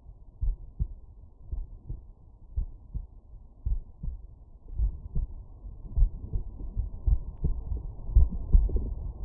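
Human heartbeat heard through a stethoscope over the heart's mitral valve area: low, muffled thuds repeating about once a second, louder in the second half.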